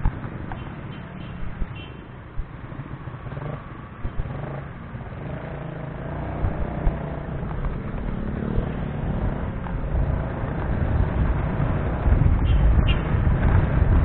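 Riding a motorcycle through town traffic: low wind buffeting on the microphone and road noise, growing louder over the last few seconds as speed picks up, with an engine note rising and falling around the middle.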